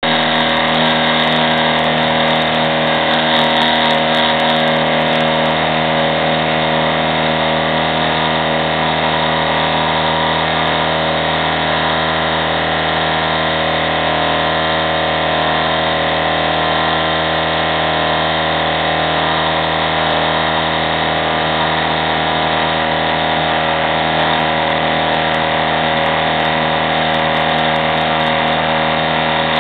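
Small CNC machine's spindle motor running steadily while milling a copper-clad circuit board: an even mechanical whine made of many held tones, with no change in speed.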